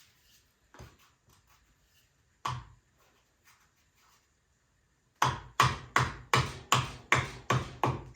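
A couple of isolated knocks, then from about five seconds in a hammer tapping rapidly and evenly on the axe head clamped in the vise, about three blows a second.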